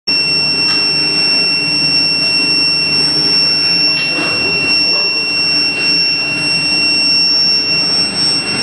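IGBT induction heating furnace running: a steady high-pitched whine from the induction coil and its power supply, over a lower machinery hum, with faint clicks now and then.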